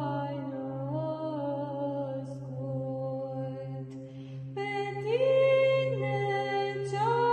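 A solo female voice singing Byzantine chant in long held notes with small ornamental turns, over a steady low drone (the ison). She breaks for a breath about four seconds in, then comes back louder on a higher note.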